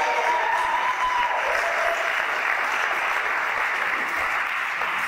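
A room of guests clapping steadily. A high held tone rides over the clapping for the first second and a half.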